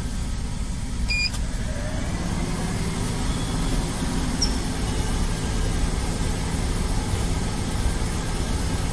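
Steady low rumbling hum from a car and the powered-up computer equipment in its trunk, with a faint short beep about a second in.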